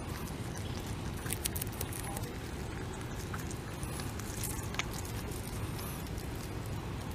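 North American beaver kit chewing green leaves close to the microphone: scattered sharp crunching clicks of its bites and rustling plants over a steady low rumble.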